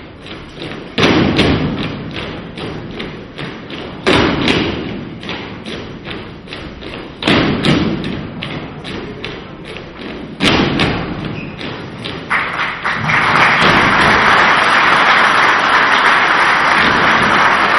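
Folk dancers' feet stepping and stamping on a wooden stage in a kolo circle dance with no music, as in the Dalmatian silent kolo: quick light steps several a second, with a heavy group stomp about every three seconds, four in all. About twelve seconds in, the audience breaks into steady applause, which is the loudest part.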